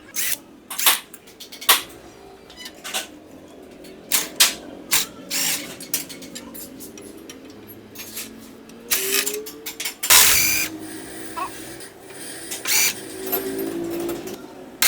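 Metal hand tools clicking and clinking against a motorcycle engine's clutch-side casing as the side cover is taken off, in irregular sharp knocks. A louder clank comes about ten seconds in.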